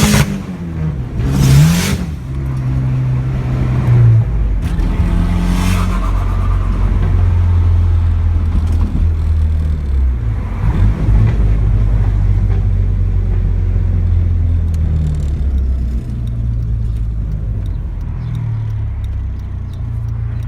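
Dodge SRT-4 Neon's turbocharged 2.4-litre four-cylinder revving up and down, with two loud hissing rushes from the external wastegate's screamer pipe in the first few seconds, then held at steady high revs for several seconds while spinning the tires in a burnout, easing off about three-quarters of the way through. Heard from inside the car.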